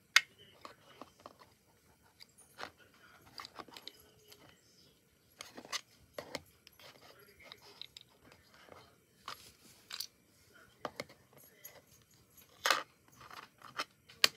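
Scattered clicks, taps and light knocks of small plastic toy figures and miniature wooden toy furniture being handled and set down on a wooden floor, with a sharper knock just after the start and another near the end.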